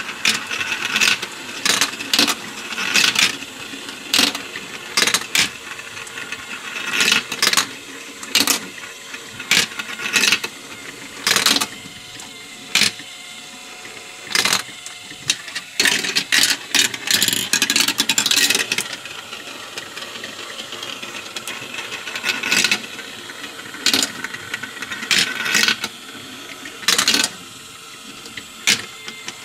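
Glass marbles rolling through a plastic marble run, clicking and clattering over and over as they run down the tracks and spirals and drop into the catch bowl, over the steady hum of the run's motorized elevator lift.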